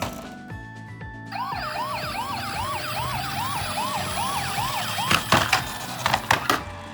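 Toy ambulance's electronic siren sounding a fast rising yelp, about three sweeps a second, for a few seconds before it stops. A handful of sharp clicks follow near the end, over background music.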